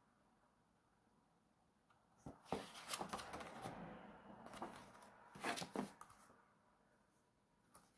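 Stiff pages of a hardbound album turned and the cover closed: paper rustling and flapping with a few sharp clicks, starting about two seconds in and dying away near six seconds.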